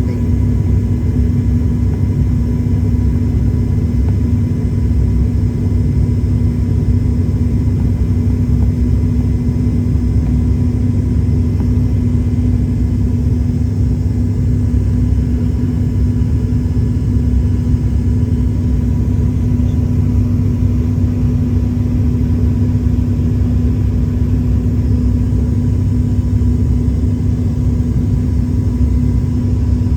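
Airliner cabin noise in flight: a steady, loud, deep engine and airflow drone with a constant hum, heard from a passenger seat as the aircraft descends toward landing.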